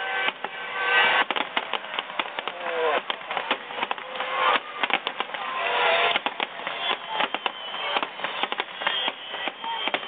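Fireworks display: aerial shells bursting in quick succession, a dense run of bangs and crackles that swells and falls back several times.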